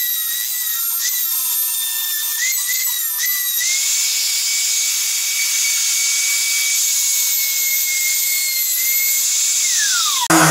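Router fitted with a 1/4-inch spiral up-cut bit, guided by a circle-cutting jig, running with a steady high whine as it cuts a fan hole in 5/8-inch plywood. About three and a half seconds in the sound grows louder and harsher. Near the end the pitch falls, then the sound cuts off.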